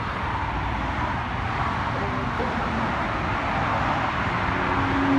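Steady road traffic noise, slowly growing louder.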